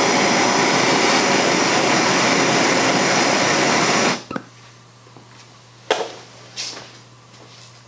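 Handheld gas torch burning with a loud, steady hiss as its flame heats a seized screw in a cast-iron treadle base, shut off suddenly about four seconds in. A sharp knock follows nearly two seconds later, then a softer one.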